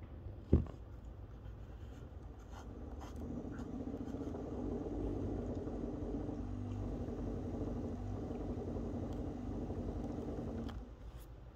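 EcoTech VorTech MP10 QD aquarium propeller pump running, humming as it speeds up over a couple of seconds, holding steady, then stopping suddenly about a second before the end. A single knock sounds about half a second in.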